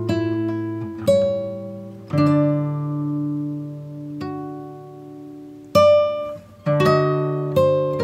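Background music: an acoustic guitar plucking slow chords and single notes, each ringing out and fading, with a quicker run of notes near the end.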